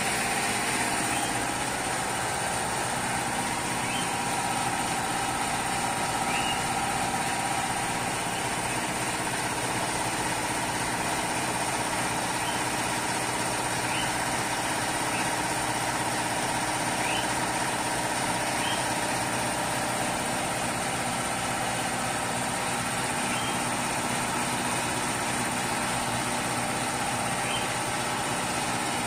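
Steady hum and hiss of the CNC plasma cutting table's equipment running, with a faint high whine and a few faint, short rising chirps now and then.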